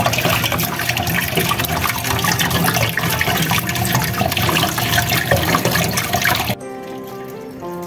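Tap water running and splashing over a peeled taro corm as hands rub it clean in a stainless steel sink. The water cuts off suddenly near the end, giving way to quieter background music.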